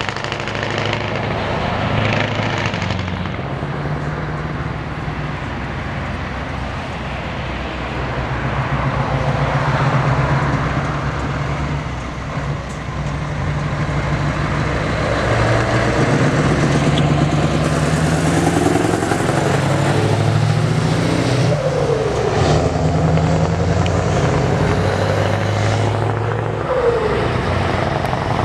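Scania V8 diesel truck engines running as the trucks drive by, a steady low engine note that steps up and down in pitch several times.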